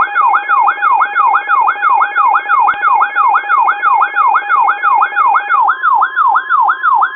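Weather radio alarm tones: a loud electronic siren tone sweeping rapidly downward, repeating about three to four times a second, over steady alert tones. About six seconds in, the steady tones change to a single steady tone, the NOAA Weather Radio warning alarm tone.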